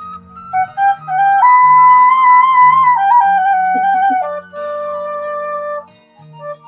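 Sundanese suling (bamboo flute) playing a melody of long held notes with a few quick turns, over a low steady accompaniment. The flute pauses briefly near the end.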